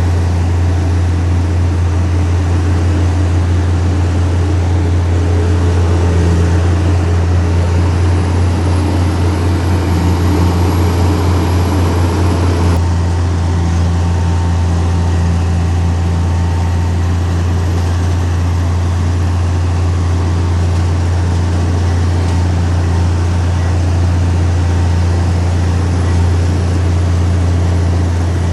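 Heavy diesel engine of an earthmoving machine running steadily, a loud low drone. The sound shifts abruptly about halfway through.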